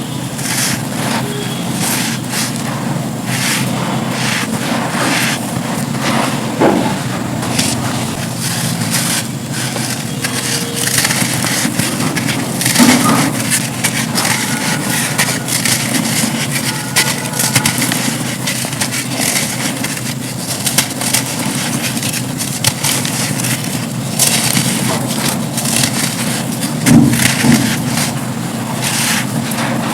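Dry black sand slabs crumbling: a dense, continuous run of crisp crunches and crackles, with a few louder crunches along the way.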